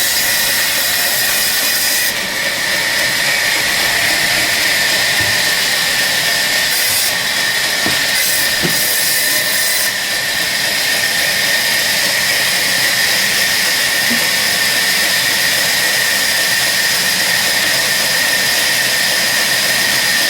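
An electric power tool running steadily, a constant high-pitched whine over a loud hiss.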